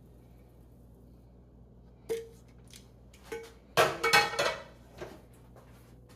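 Kitchen utensils clinking against cookware: a couple of single ringing clinks, then a louder rattling clatter in the middle, and one last clink.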